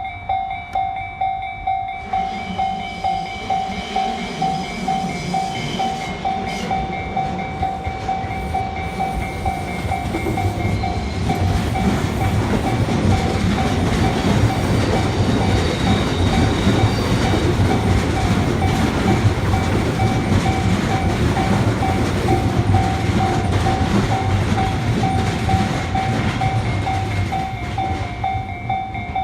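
Japanese railroad crossing bell ringing its repeated "kan-kan" about twice a second while a train passes through the crossing, its wheels clattering over the rail joints. The train noise builds from a couple of seconds in and dies down near the end, and the bell keeps ringing throughout.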